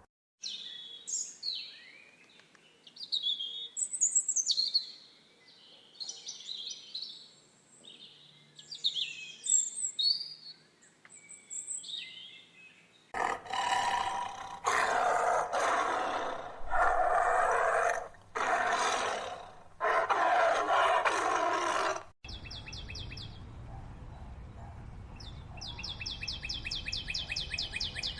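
Several animals call in turn. First come birds chirping in quick sliding whistles. About halfway through, five loud drawn-out animal calls follow, each about a second long. Near the end there is a fast, even high-pitched rattling trill over a low rumble.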